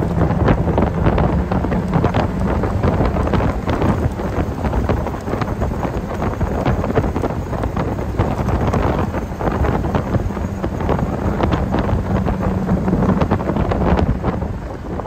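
Wind buffeting the microphone in the open cockpit of an MG TD roadster on the move, over the steady drone of its four-cylinder engine.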